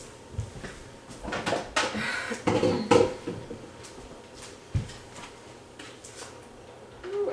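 Off-camera kitchen handling: a run of knocks and clinks of dishes and cupboards from about one to three seconds in, then a single dull thump near five seconds.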